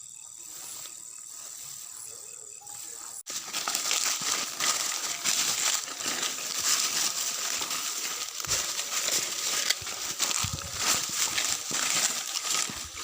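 Insects trilling faintly at first; about three seconds in, loud, dense crackling and rustling of dry vegetation takes over, as of someone pushing through dry rice straw.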